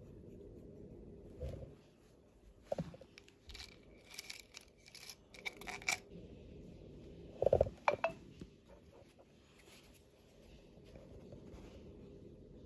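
Close-up scratching and crackling of a metal ear pick scraping inside an ear canal, in a run of short scrapes for a few seconds. Past the middle come two dull thumps with a crackle, then only faint scratches.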